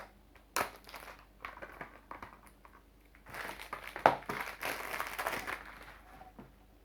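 Plastic packaging on a Blu-ray case being worked open by hand, crinkling, with a few sharp clicks and a denser stretch of rustling about three seconds in.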